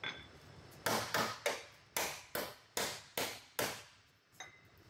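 Sledgehammer blows driven through a steel pipe onto the crash-damaged steel inner fender apron of a Toyota Prado, knocking the bent metal back into shape: a run of about eight sharp strikes at two to three a second, with a fainter knock near the end.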